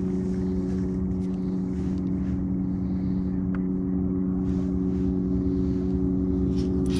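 Bow-mounted electric trolling motor humming steadily as it holds the boat, over a low rumble.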